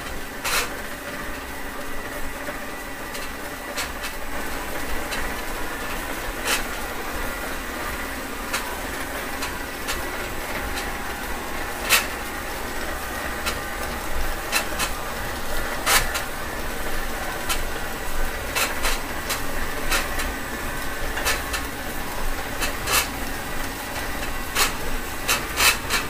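Automatic plastic-film screen-printing machine running: steady mechanical noise of the film web rubbing over steel rollers, with irregular sharp clicks that come more often near the end.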